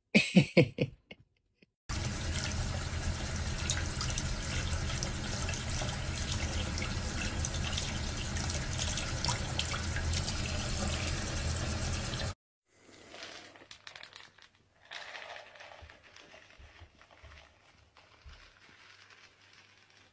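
Tap water running from a faucet into a sink, a steady rush lasting about ten seconds that cuts off suddenly. It is preceded by a short loud cry at the very start and followed by faint scratchy rustling.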